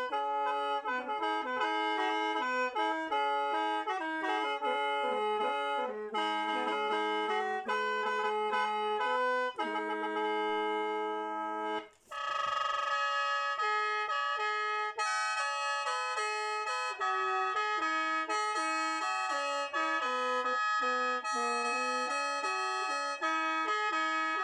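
Khaen, the Lao bamboo free-reed mouth organ, played solo: a quick melody over held drone notes, with a brief break about halfway before the tune picks up again.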